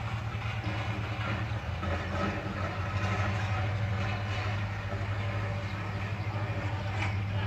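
Diesel engine of a small asphalt roller running steadily, a low drone with a strong hum.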